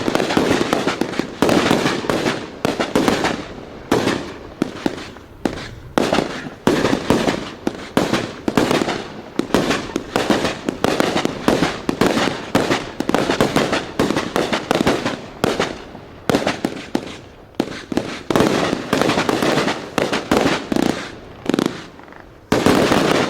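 A 36-shot, 1-inch fan-shaped fireworks cake firing in quick succession, about one or two shots a second, each shot followed by its fading burst, with a loud final volley near the end.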